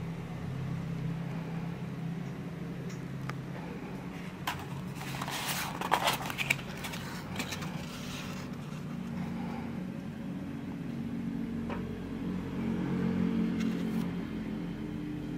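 A cardboard food box being opened by hand: a few seconds of rustling and sharp clicks from the lid and flaps around the middle, over a steady low hum.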